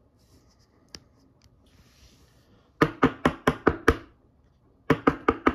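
Two quick runs of sharp knocks on a hard surface, about six knocks a second, the first about three seconds in and the second near the end.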